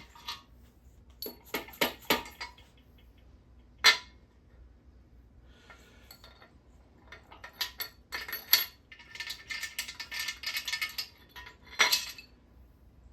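Metal engine parts being handled and set down: scattered sharp metallic clinks, with a denser rattling stretch in the second half.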